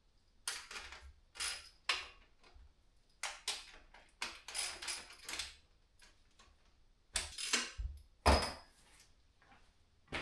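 Metal clinks and rattles of a wrench working the bicycle's saddle clamp, as the saddle is loosened and shifted. There are about eight short bursts, some in quick pairs, and the loudest is a knock with a low thud about two-thirds of the way through.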